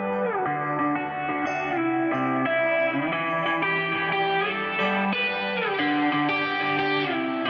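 Background music: an electric guitar playing with sliding notes.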